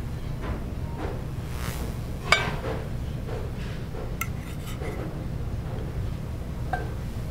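Metal utensils clinking and scraping in a stainless steel sauté pan while pan-seared salmon is lifted out onto a plate: one sharp clink a little over two seconds in, then a few lighter taps. A steady low hum runs underneath.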